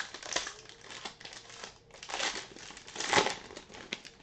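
Foil wrapper of a trading-card pack being torn open and crinkled by hand, in irregular crackling bursts that are loudest about two and three seconds in.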